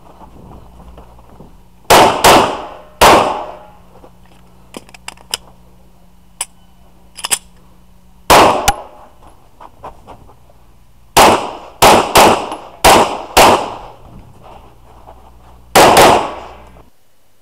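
Glock pistol firing at close range, about eleven shots in quick pairs and triples with pauses of a few seconds between groups. A few fainter clicks and pops fall in the pauses. The sound cuts off suddenly near the end.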